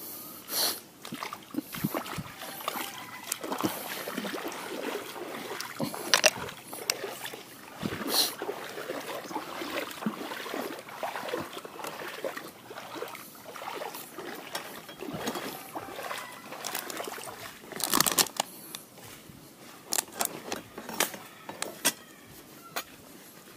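Footsteps splashing and sloshing through a shallow, muddy creek, with irregular clicks and knocks from carried fishing gear. A few sharper knocks stand out, the loudest about 18 seconds in.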